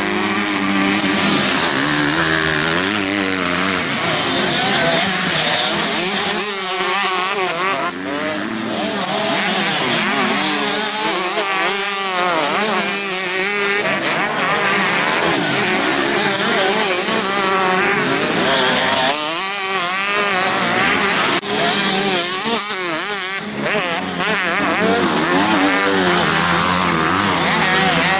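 Several motocross bike engines revving hard as the bikes race past, overlapping, their pitch rising and falling again and again as the riders work the throttle.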